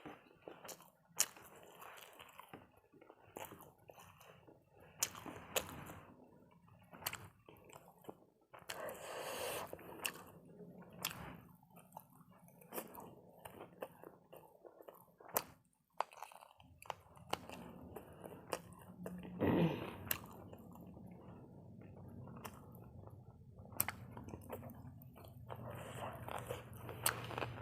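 Close-up sounds of a person eating: chewing and biting, with crunches and many scattered sharp mouth clicks.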